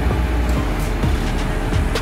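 JCB single-drum road roller running as it drives over the dirt roadbed: a steady, loud, low diesel rumble.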